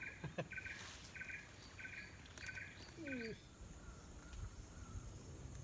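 A bird calling in the background: a short note repeated six times, about one and a half a second, stopping a little over three seconds in.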